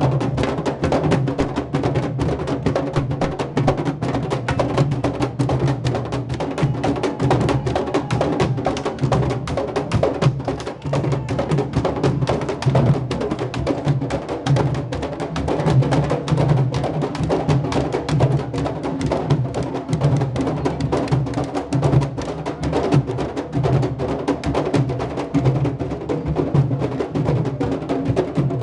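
Candombe drums (tamboriles) played by a marching street drum group: many drums struck with hand and stick in a fast, dense, interlocking rhythm, sharp stick clicks over deep low strokes.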